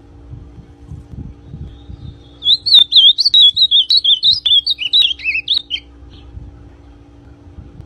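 Ultramarine grosbeak (azulão) singing one fast warbling phrase of about three seconds, starting a couple of seconds in.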